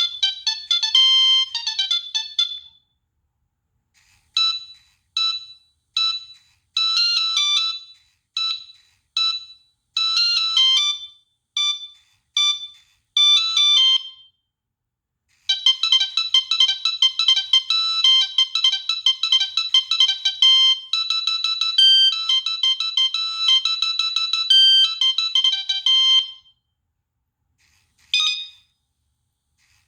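Preloaded ringtones of a Nokia 3588i mobile phone playing one after another. One tune ends in the first couple of seconds; from about four seconds in comes a melody of short, separated notes; after a pause of a second or so, a faster, unbroken tune runs from about fifteen to twenty-six seconds; a brief chirp sounds near the end.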